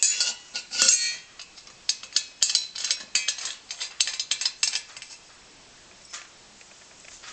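Brass parts of an Optimus No 415 blow torch clinking and tapping against each other as they are handled and fitted back together: many small metallic clicks, some ringing briefly, dying down after about five seconds to an occasional click.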